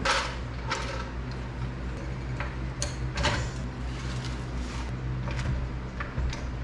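A car being raised on a floor jack: sharp metallic clicks and clanks from the jack and its handle, loudest at the start and about three seconds in, over a steady low hum.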